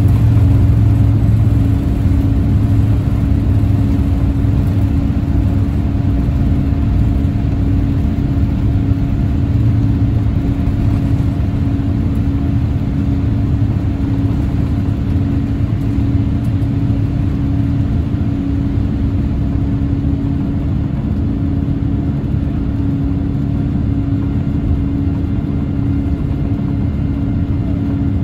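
Boeing 787-8's Rolls-Royce Trent 1000 turbofan engines at climb thrust, heard inside the cabin: a steady roar with a low rumble and a constant hum. It eases slightly about two seconds in, then holds level.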